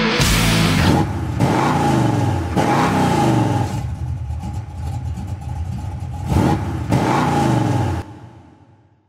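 Motocross motorcycle engines revving, pitch sweeping up and down several times, cut short and fading out near the end.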